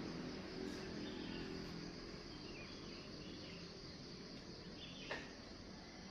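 Steady insect trilling, high and continuous, over a low background hum, with faint chirps and a single short tap about five seconds in.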